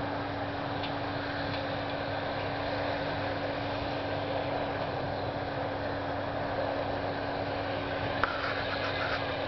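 John Deere 7320 tractor's diesel engine running at a steady speed with a John Deere 854 round baler working behind it, a constant hum over the machinery noise. A few brief clicks and rattles near the end.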